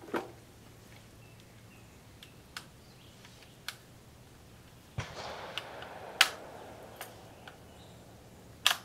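Metal clicks and clacks from an Austrian M95 carbine's straight-pull bolt being worked and the rifle handled, with a rustle of handling about five seconds in and the sharpest clacks near six seconds and near the end. The bolt is not picking up a cartridge from the magazine.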